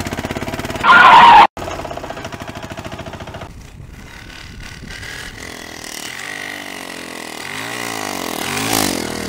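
Auto-rickshaw engine running as the three-wheeler pulls away, then turns and passes close, its pitch rising and falling as it goes by. A loud, short blast about a second in cuts off abruptly.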